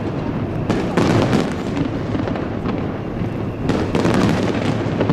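Aerial fireworks shells bursting in quick succession, a dense run of bangs and crackles. The heaviest volleys come about a second in and again near four seconds.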